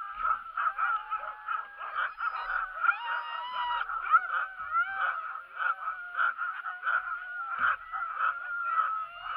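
A team of harnessed sled dogs barking and yelping nonstop in an overlapping chorus, with a few drawn-out whines among the yips: the impatient din of sled dogs eager to start a run.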